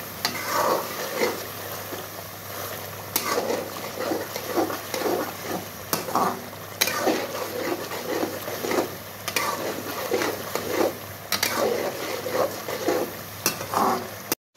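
Metal spoon stirring and scraping boneless chicken and spices around a metal karahi as they fry in a sizzling gravy, with a sharp clink of metal on the pan every couple of seconds. This is the bhunai stage, frying the meat and spices together.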